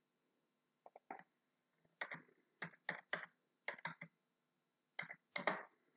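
Typing on a computer keyboard: a dozen or so keystrokes in short irregular runs with pauses between, entering a name into a form.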